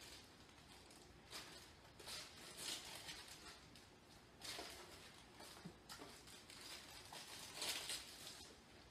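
Clear plastic zip-top bags and thin plastic food containers handled, rustling and crinkling faintly in short irregular bursts.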